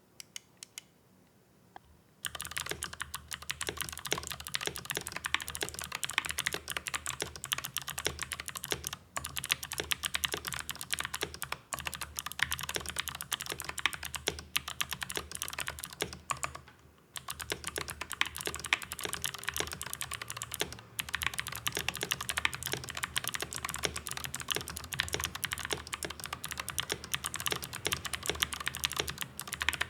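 Mechanical keyboard fitted with Gateron Melodic clicky switches being typed on continuously: a fast stream of crisp, high key clicks, starting about two seconds in and pausing briefly a little past halfway.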